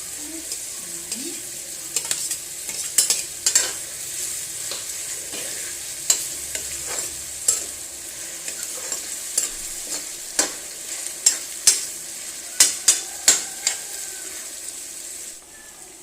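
Food sizzling as it fries in a pan, with a spoon or spatula stirring and scraping against the pan in many quick, irregular strokes. The sizzling drops near the end.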